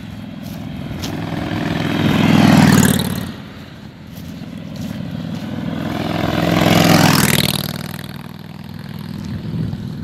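Two motorcycles pass close by one after the other, the first about two and a half seconds in and the second about seven seconds in. Each engine note grows loud as it nears and fades as it goes by.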